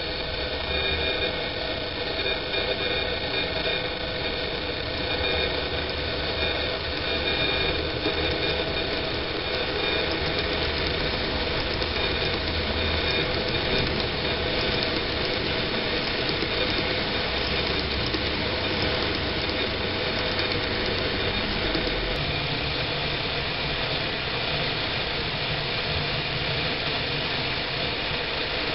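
N-gauge TOMIX model train, an EF65 locomotive model hauling 24-series sleeper coaches, running on the track: a steady motor hum mixed with the rolling of the small wheels on the rails.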